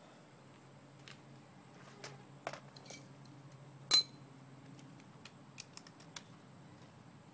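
Scattered light metallic clicks and clinks of hand tools and hardware being handled, with one sharp, briefly ringing metal clink about four seconds in.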